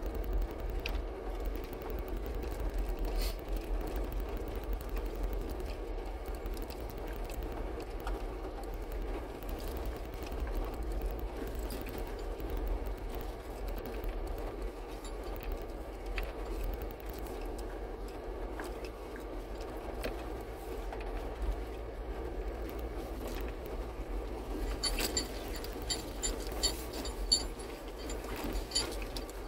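A 4x4 crawling over a rough gravel track, heard from inside the cab: a steady low engine and tyre rumble with scattered knocks and rattles. A run of high chirps comes in near the end.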